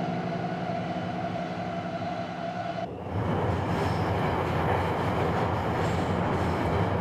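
A held music chord fades out and is cut off about three seconds in by the steady rumble of a subway train running.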